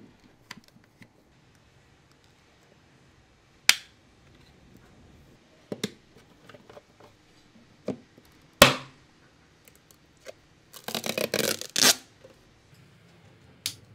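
Hand-handling sounds of a touch curtain switch being fitted into its wall box: scattered single sharp plastic clicks and knocks, the loudest about two-thirds through, then a rapid run of clicks lasting about a second near the end as the glass front panel is pressed into place.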